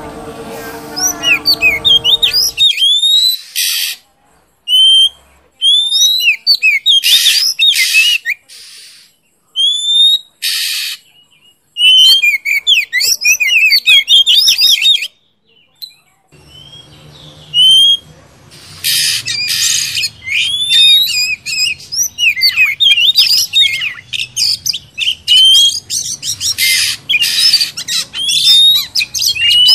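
A chorus of birds calling: quick rising and falling chirps and whistles, many overlapping, with harsh rasping calls of about half a second each mixed in.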